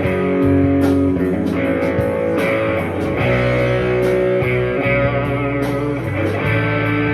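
Electric guitar playing held chords and notes for a tone test, over a steady beat with bass.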